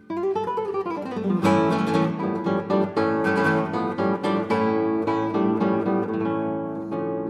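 Acoustic guitar music, plucked and strummed notes in a steady rhythm, starting abruptly.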